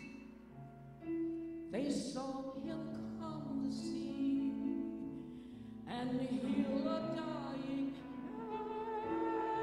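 A woman singing a slow church solo in separate phrases over long, sustained accompaniment chords.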